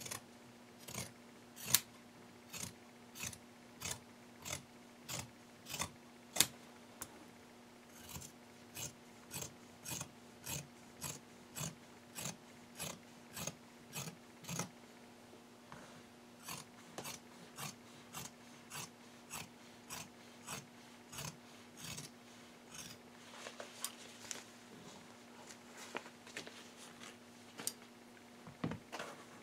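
Fabric shears cutting through a stack of several layers of heavy home-dec fabric, a crisp snip about every two-thirds of a second. The snips turn sparser and uneven in the last third, with a single knock near the end.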